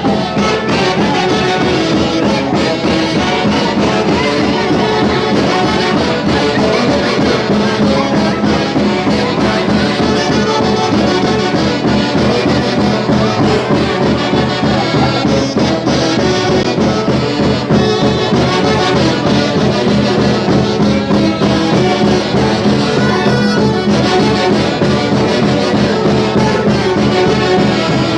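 A Peruvian folk orchestra (orquesta folclórica) playing a Santiago tune, led by brass horns over a steady dance rhythm.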